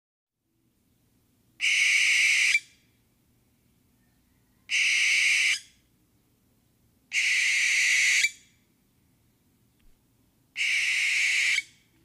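Owl calling: four harsh, breathy screeches of about a second each, a few seconds apart, the first about a second and a half in.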